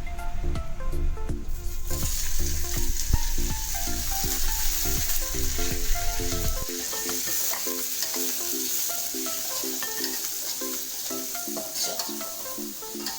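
Food sizzling in hot oil in a frying pan, the sizzle coming in strongly about two seconds in and holding steady, with small crackles. Background music of repeating notes runs underneath.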